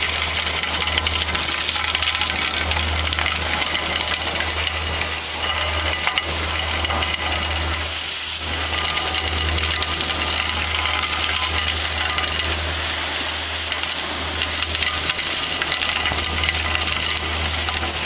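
Railway vacuum track-cleaning machine running steadily, a constant mechanical noise over a strong low hum.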